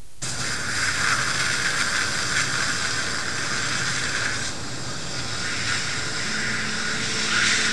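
Dental suction tip drawing at the mouth: a steady hiss, louder through the first four seconds or so and again briefly near the end.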